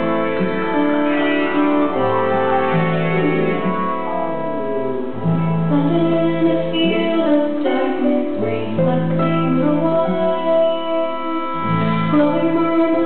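Acid folk band playing live: electric guitar, fiddle, harp and acoustic guitar together, long held notes over a slowly stepping low line.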